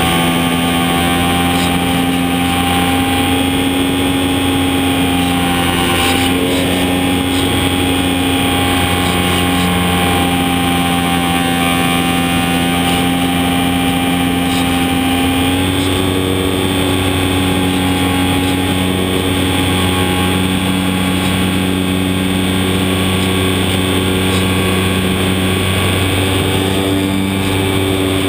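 Electric motor and propeller of a HobbyZone Super Cub model airplane in flight, heard up close from a camera mounted under the plane: a steady whine and propeller buzz over rushing air, its pitch shifting slightly about halfway through.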